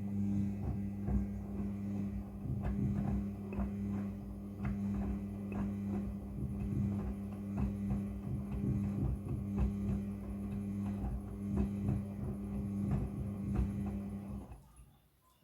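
Front-loading washing machine running: a steady motor hum with irregular knocking and rattling over it. It switches on with a click and cuts off about 14 and a half seconds in.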